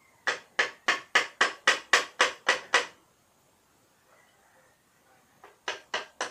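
Metal-on-metal tapping on a motorcycle engine being taken apart: about ten sharp taps at roughly four a second, a pause, then another short run of taps near the end.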